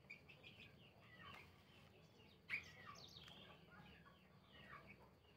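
Faint chirping of small birds in the background, many short calls, with one louder chirp about halfway through.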